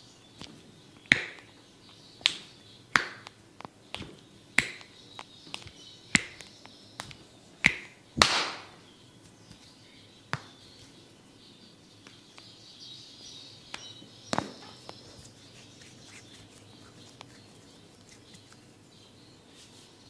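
Sharp snaps made during a head and back massage, about one a second for the first eight seconds, the loudest at about eight seconds in, then two more spaced out near ten and fourteen seconds in.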